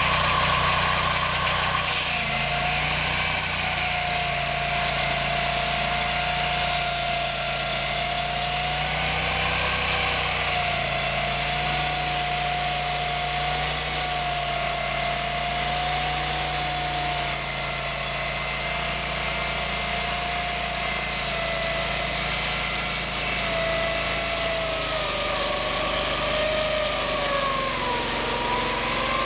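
A sawmill's engine running steadily with a whining tone that wavers slightly in pitch. The pitch dips near the end.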